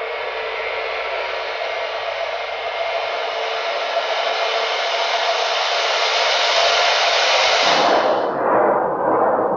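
A steady, dense rushing noise effect on an animated film's soundtrack, slowly swelling louder, then turning lower and duller about eight seconds in.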